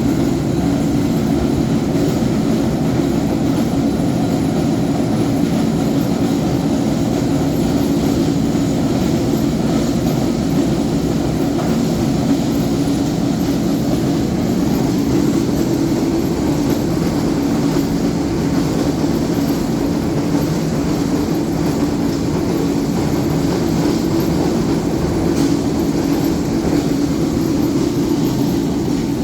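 4R Raymond roller grinding mill running steadily under load while grinding dolomite: a loud, constant mechanical rumble and drone.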